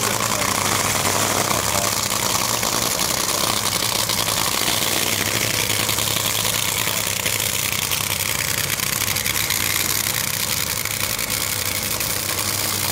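Top Fuel dragster's supercharged nitromethane V8 idling steadily.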